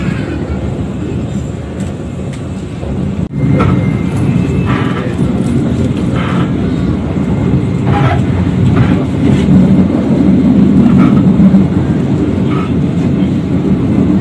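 Steady low rumble of a moving passenger train heard from inside an economy-class coach, with a brief break about three seconds in.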